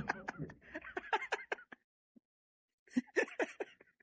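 People's voices in short bursts of low, unclear talk, with a gap of about a second near the middle.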